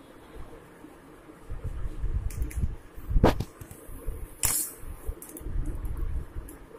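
Kitchen knife and fingers prising open a boiled mango stone's fibrous husk: irregular scraping and handling noises, with two sharp clicks about three and four and a half seconds in.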